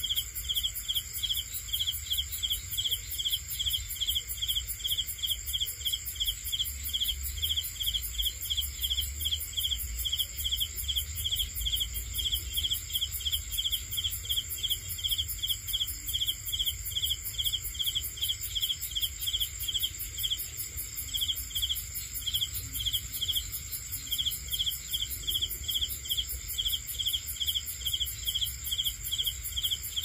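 Crickets chirping in a steady run of high chirps, roughly three a second, over a constant high insect trill. The chirping breaks off briefly twice in the later part.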